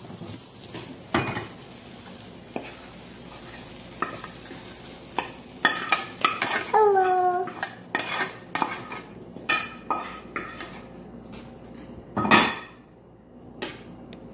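A spoon scraping and knocking against a nonstick frying pan in scattered taps and clicks as fried masala is scraped out of the pan into a pot of yogurt, with a louder knock about twelve seconds in.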